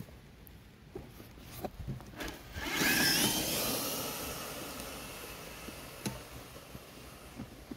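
Traxxas TRX-4 RC crawler's electric motor and gearbox whining as it drives, the whine wavering in pitch. It starts suddenly a little under three seconds in and fades over the next few seconds, with a few scattered clicks and knocks before and after.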